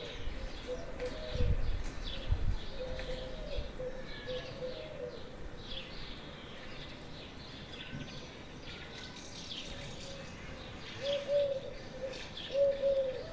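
A dove cooing in repeated low phrases, with small birds chirping higher up. Two low thumps stand out about one and a half and two and a half seconds in.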